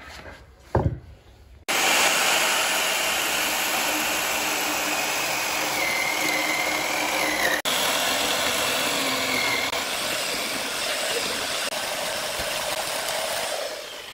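A heavy log is set down onto wooden blocks with a single thump. Then a corded electric chainsaw runs steadily as it cuts through the log, dying away just before the end.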